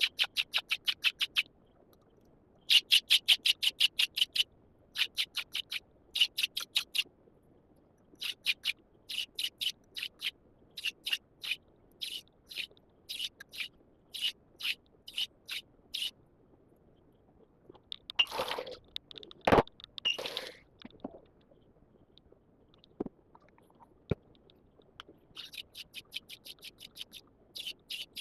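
Steel knife blade stroked quickly back and forth on a coarse 220-grit DiaSharp diamond whetstone, a rasping scrape about five strokes a second in short runs with brief pauses. Partway through, the strokes stop for a few seconds of handling noise with one sharp knock.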